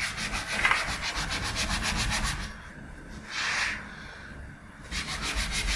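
Kitchen scouring sponge scrubbing a Fiat Doblo's painted door panel in rapid back-and-forth strokes. It pauses partway through with a single longer swipe, then scrubs again. The sponge is working off leftover vinyl-wrap adhesive and stuck-on dirt.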